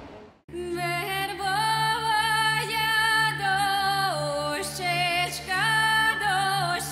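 Background music: a singing voice holds long notes in a slow melody over a steady low drone, starting about half a second in.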